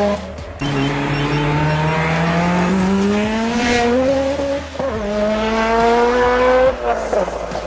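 Highly tuned turbocharged Mitsubishi Lancer Evolution (about 900 hp on a 6766 turbo at 48 psi) pulling hard at full throttle through the gears with all four tyres spinning. The engine note climbs steadily and drops at upshifts about half a second in, near five seconds and near seven seconds.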